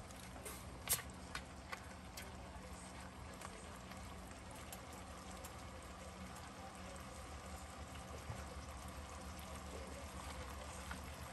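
Ground pork sizzling and simmering faintly in its juices in a skillet: a steady low sizzle, with a few sharp pops in the first couple of seconds.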